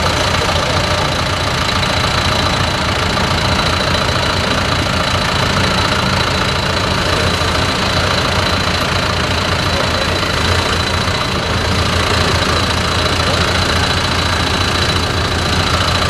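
A John Deere 6MC tractor's diesel engine runs steadily as it moves slowly with a rake mounted behind it. A thin, steady high whine sits over the engine sound.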